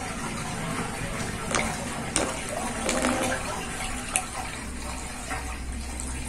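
Water swirling down a sink drain in a whirlpool, running with a steady watery wash as the basin empties. A few sharp drips sound about a second and a half, two seconds and four seconds in.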